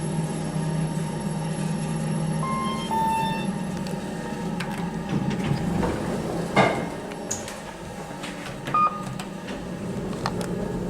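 Lift car running with a steady low hum that fades about two and a half seconds in, followed by two short electronic chime tones. About six and a half seconds in there is a loud clunk, then a single short beep near the end, with scattered clicks.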